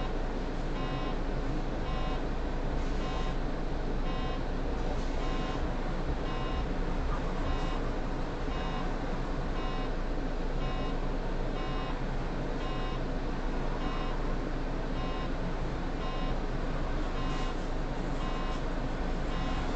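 A short electronic beep in the city bus's cab, repeating evenly roughly every two-thirds of a second, over the steady low hum of the bus idling at a standstill.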